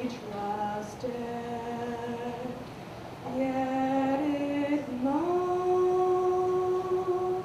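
A woman singing solo and unaccompanied, holding long notes; about five seconds in her voice rises to a higher note and holds it.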